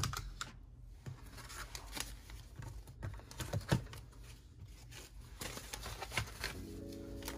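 Paper banknotes rustling and shuffling as stacks of cash are picked up and moved, with scattered light clicks. Soft background music with held notes comes in near the end.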